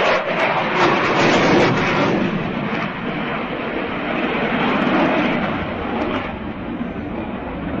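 Military jet flying overhead at an air display: a continuous rushing engine noise that swells and eases a little as the aircraft passes.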